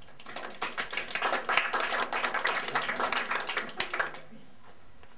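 Applause: many hands clapping for about four seconds, then dying away.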